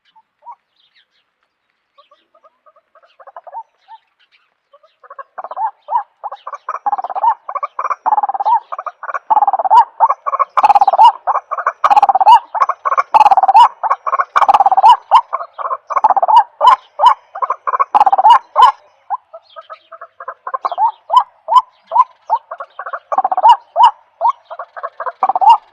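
A long, rapid series of repeated animal calls, many per second and building up a few seconds in, with sharp clicks scattered among them.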